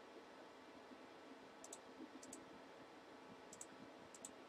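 Four faint clicks of a computer mouse, each a quick pair, spaced irregularly over a low steady hum.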